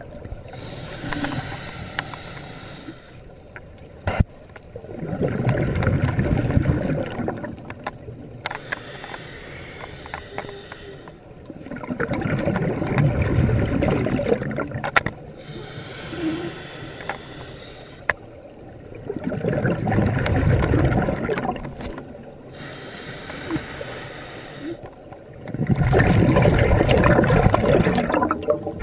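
Scuba diver's breathing heard underwater: exhalations through the regulator as bursts of bubbling lasting two to three seconds, about every seven seconds, with quieter stretches and faint clicks in between.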